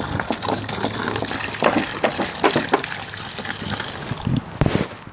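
Water splashing and sloshing hard in a shallow plastic tub, churned into foam to make a wave, with many sharp splashes and a loud one near the end.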